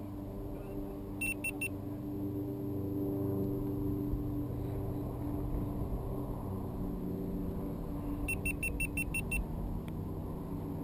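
An electronic beeper on the weather-balloon payload sounding short high beeps: three in quick succession about a second in, then a run of about seven near the end, over a steady low rumble.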